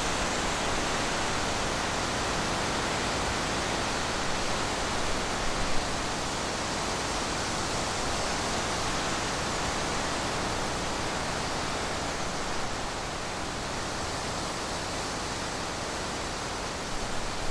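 Steady, even rushing noise with no distinct animal calls, and one brief louder blip about six seconds in.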